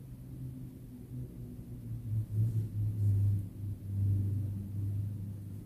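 A low rumble that swells from about two seconds in and eases toward the end.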